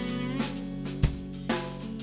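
End-credits song with guitar and a drum beat: held guitar chords over a steady low bass, with drum hits about every half second to second.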